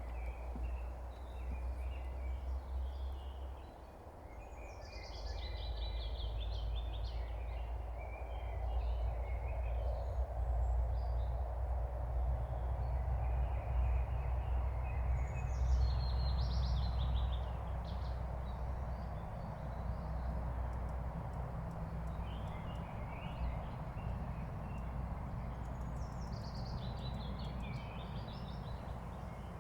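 Distant songbirds singing across a swamp. A bright, high song phrase comes about every ten seconds, with fainter chattering calls between, over a steady low rumble.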